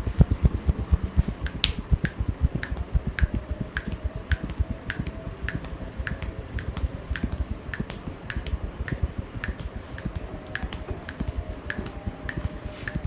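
A barber's hands giving a percussive massage, striking the body in a fast, even rhythm of dull pats several times a second, with sharper slapping clicks about twice a second.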